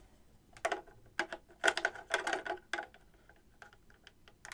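Hard plastic of a toy Starship Enterprise clicking and tapping as it is handled: a quick run of clicks and knocks in the first three seconds, then only faint ticks.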